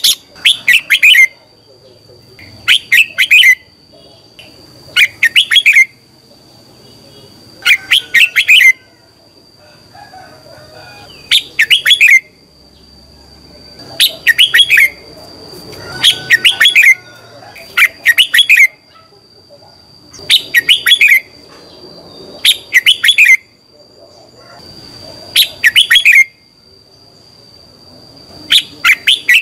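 Red-whiskered bulbul singing: loud, short phrases of quick clear notes, one every two to three seconds, over a steady thin high tone.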